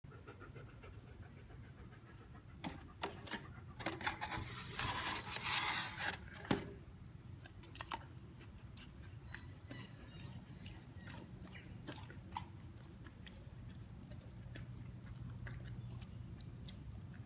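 German shepherd panting, then chewing and smacking on a doughnut, with wet clicks and crackles. A louder burst of crackling and rustling comes about four to six seconds in, then quieter licking and sniffing at crumbs on the floor.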